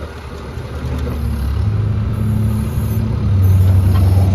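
Kubota diesel engine of an AGT NT45 mini excavator running while the operator works the hydraulics, getting louder in steps about a second and a half in and again near the end.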